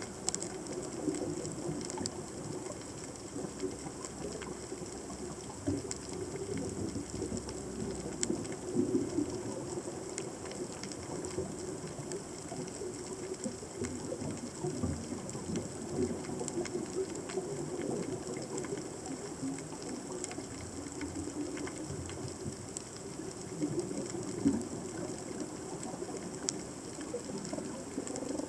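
Underwater reef soundscape picked up by a submerged camera: a continuous crackle of scattered sharp clicks, the kind made by snapping shrimp, over a low, uneven, fluttering rumble of moving water.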